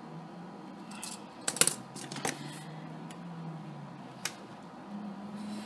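Desk handling noise: a few sharp, light clicks and taps as a pen and a spiral planner are handled, the loudest about one and a half seconds in, over a faint low hum.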